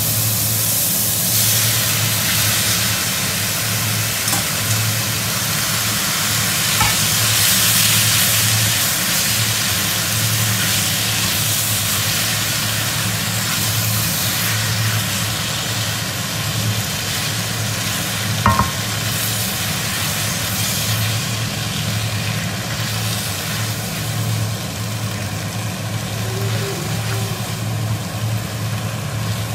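Spaghetti, mushrooms and cherry tomatoes sizzling in hot olive oil in a wok while a wooden spatula stirs and tosses them, over a steady low hum. A single sharp knock comes about two-thirds of the way through.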